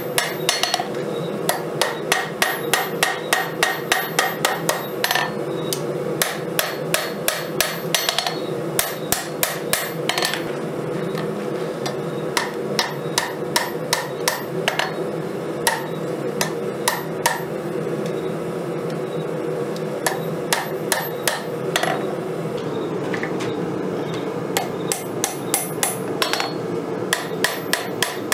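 Hammer blows on hot 5160 steel being forged into a knife blade: runs of quick, ringing strikes, about three a second, broken by a few short pauses, over a steady low rushing noise.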